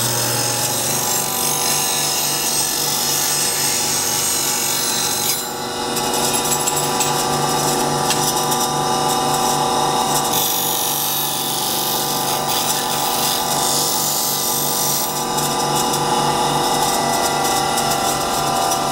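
Steel City bench grinder running steadily while a steel skew chisel is ground against its wheel: a constant motor hum under a gritty grinding hiss. The grinding eases briefly about five seconds in as the tool comes off the wheel, then resumes.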